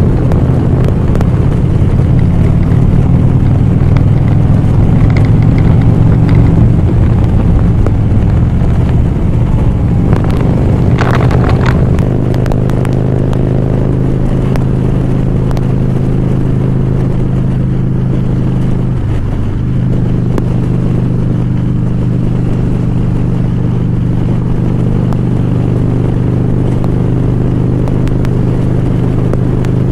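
A Harley-Davidson Ultra Classic Limited's V-twin engine running under way, loud and steady. Its note changes about twelve seconds in, then holds even, with a brief dip about two-thirds of the way through.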